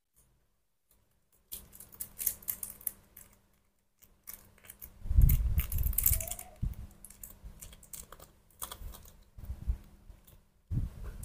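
Light clicking, scratching and rustling of bodies moving on clothing and a floor mat, with a few soft low thumps about five seconds in.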